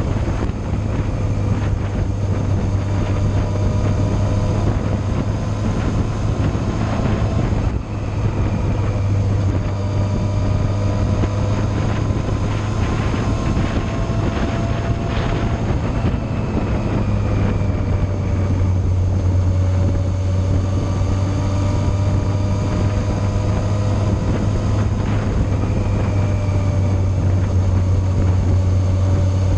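Yamaha Fazer motorcycle engine running at a steady cruise, its pitch rising and falling gently, with wind rushing over the microphone. The level dips briefly about eight seconds in.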